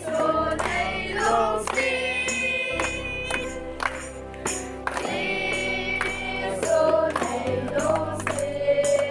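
Gospel-style Christian music: several voices singing held notes with vibrato over a steady bass and a regular beat.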